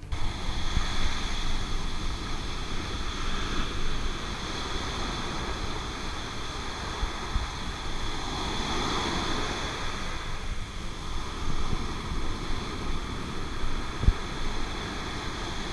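Surf washing onto a sandy beach, with wind buffeting the microphone in gusts. A single short thump comes about fourteen seconds in.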